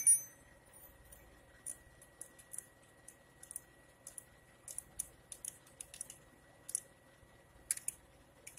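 Small metal clicks and taps of a screwdriver and small fasteners against a car alternator's rear housing as it is screwed back together, irregular and a few per second, with one sharp loud click at the very start.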